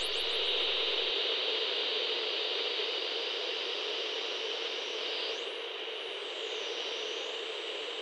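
Television static hiss used as a sound effect: a steady noise that slowly fades, with a faint high sweep rising and falling about five to seven seconds in.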